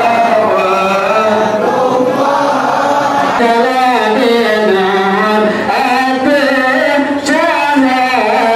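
A group of voices chanting a melodic devotional chant in unison, continuous and without pause, of the kind sung for the Prophet's birthday (Maulid).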